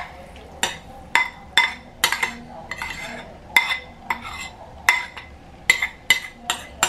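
A metal spoon clinks and scrapes against a ceramic bowl as a sago-and-coconut mixture is scooped out into a glass dish. The clinks are sharp and irregular, about two a second.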